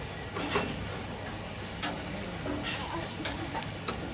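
Yamame trout grilling in a hinged wire grill basket over an open gas burner: a steady hiss of flame and sizzling, with light clinks and scrapes of a metal spatula and iron lids about once a second.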